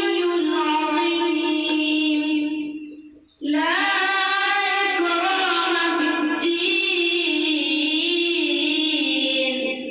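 A boy reciting the Quran in a long, melodic chant into a handheld microphone, holding drawn-out notes. He pauses for breath about three seconds in, then starts another long phrase that ends near the close.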